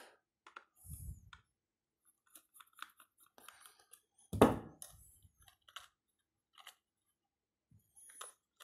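Small screwdriver turning a screw in the plastic underside of a toy RC car, making light clicks and scrapes of metal on plastic, with one louder thump about four and a half seconds in.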